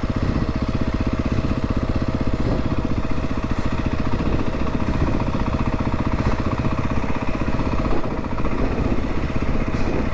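Enduro dirt bike engine idling steadily, a fast even chug with no revving.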